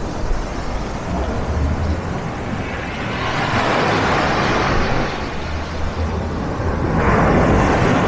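Black Sea surf on a pebble beach: a steady rush of foam and backwash, swelling louder as a wave breaks about three seconds in and again as another breaks near the end.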